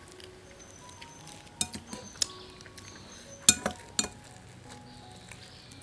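Tableware clinking during a meal of crab: a few scattered sharp clicks and clinks of a spoon and crab shells against plates, the loudest about three and a half seconds in.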